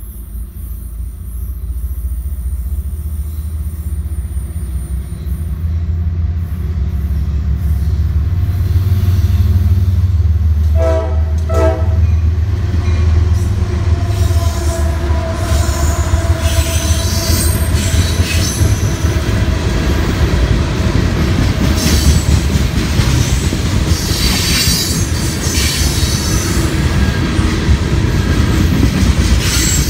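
A diesel freight train passing close by. Its locomotive's deep rumble builds over the first ten seconds, with a short horn sounding about eleven seconds in. Then the freight cars roll past, their wheels clattering and squealing on the rails.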